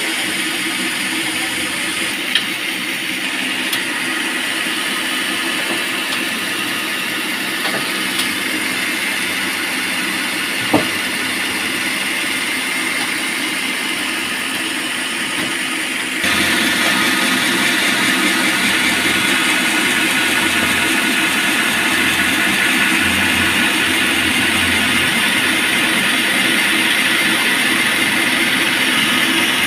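Engine-driven band sawmill running steadily, with one short click about eleven seconds in. About sixteen seconds in the noise suddenly becomes louder and brighter.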